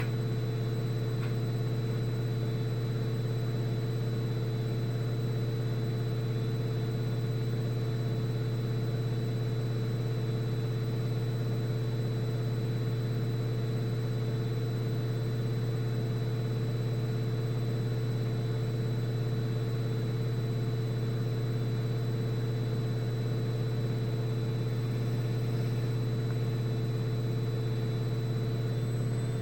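Atlant 70U1214 front-loading washing machine spinning at high speed: a steady, even hum from the drum and motor.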